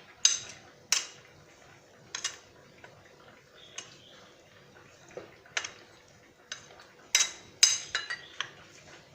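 A spoon clinking against a mixing bowl in irregular strokes while the marinade paste is mixed into the chicken. The clinks are sharp with a short ring, and several come close together around seven to eight seconds in.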